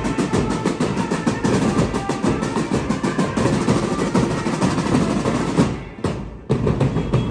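A marching band of drummers beating steel-shelled side drums with sticks in a fast, dense rhythm. The level dips briefly about six seconds in, then the drumming resumes.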